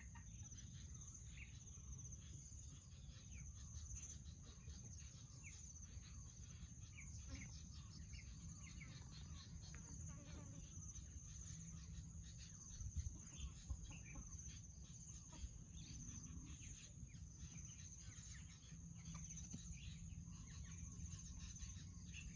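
Laying hens clucking softly here and there, faint, over a steady high insect drone.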